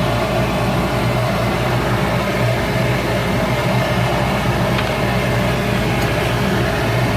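Shop Fox W1836 midi wood lathe running steadily, its motor giving a constant hum.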